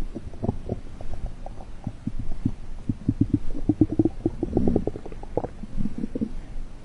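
Stomach growling sound effect: a long run of quick gurgles and bubbly pops over a low rumble, busiest in the middle.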